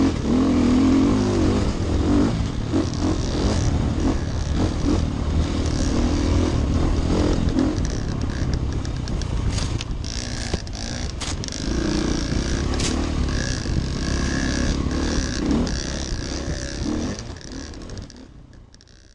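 Dirt bike engine running and revving up and down as the bike rides a rough trail, with a few sharp knocks from the bike over the ground around the middle. The sound fades out near the end.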